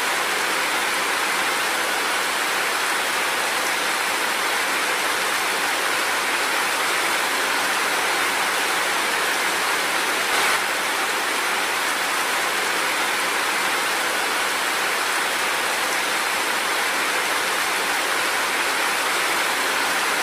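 Steady, continuous rain falling, an even hiss of dense drops, with a brief slightly louder swell about halfway through.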